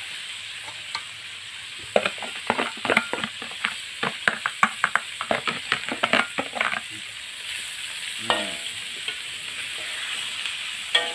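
A spatula scraping and tapping against a plastic bowl, a quick run of sharp clicks for several seconds, then a wok of stir-fried spice paste and vegetables sizzling with a steady hiss.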